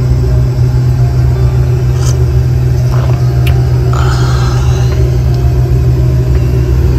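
Toyota Land Cruiser's engine running with a steady low rumble, heard from inside the vehicle, with a few light knocks and a brief rattle around the middle.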